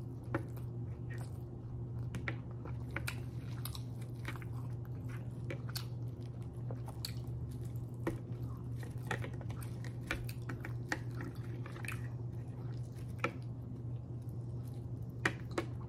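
Close-up chewing of grilled pork chop: many small wet mouth clicks and smacks at an irregular pace, over a steady low hum.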